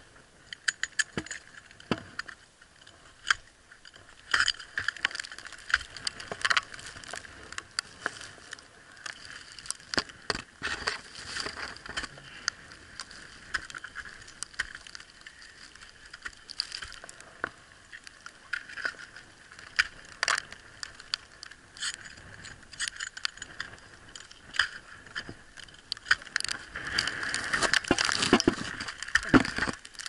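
Ice axe picks and crampon points striking and scraping on a frozen waterfall, with metal climbing gear clinking. The ice is so hard in the minus 19 °C cold that the axes barely bite. The strikes come as many scattered sharp knocks, with a denser stretch of scraping near the end.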